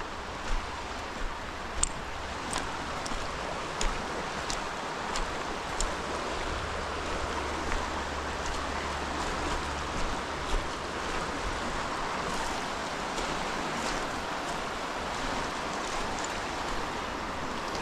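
Steady sound of flowing water, with scattered sharp clicks.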